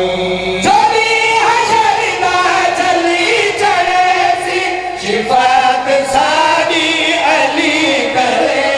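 Several men's voices singing a devotional verse together over microphones, in long held notes that waver in pitch.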